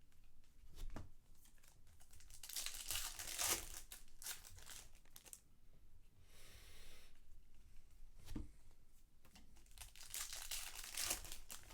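Trading card pack wrappers being torn open and crinkled, in two bouts of crackling rustle with a softer rustle between them.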